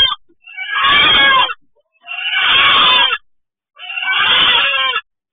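Chicken giving loud distress cries, each drawn out over about a second, three in a row with short gaps between them. These are the cries of a hen under attack from a raccoon that is reaching into the coop.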